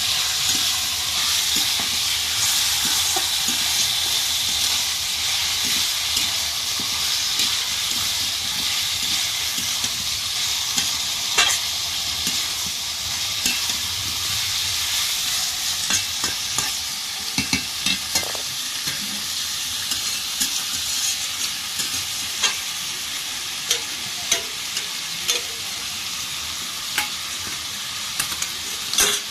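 Chicken pieces and potatoes sizzling in hot oil in a kadai, the steady fry hiss easing slightly later on. A spatula clicks and scrapes against the pan as the pieces are stirred, more often in the second half.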